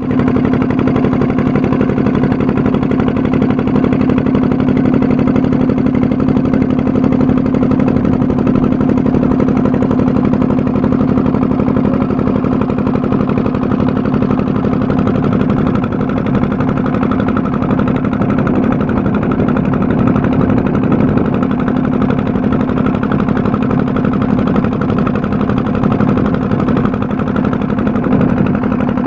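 An engine running at a steady speed, a constant hum.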